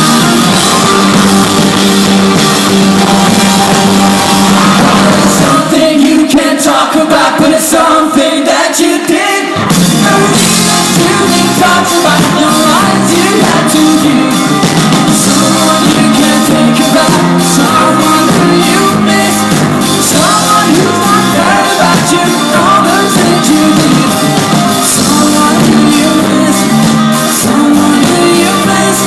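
Rock band playing live with a lead singer. The bass and drums drop out for a few seconds from about six seconds in, then the full band comes back in.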